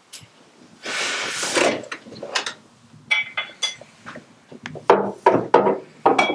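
Glass bottle and glass clinking, with light knocks on a wooden desk and box, as they are taken out and handled. A short rustle of noise comes about a second in.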